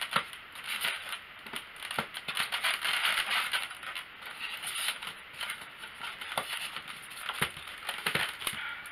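Styrofoam packing insert squeaking and crackling as a gimbal camera is worked loose from its moulded cutout: irregular scrapes, creaks and clicks, busiest a few seconds in.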